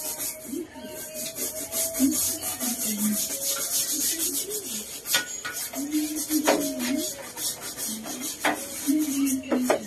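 Quick repeated scrubbing strokes on the body of an electric tricycle being hand-cleaned, busiest in the first half. A few sharp knocks come in the second half, with a low wavering tone underneath.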